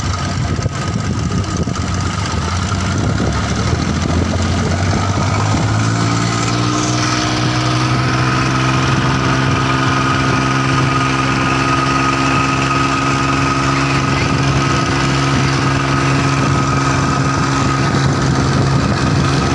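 Longtail boat engine running loud and close. About five seconds in its note firms up and rises a little, then holds steady.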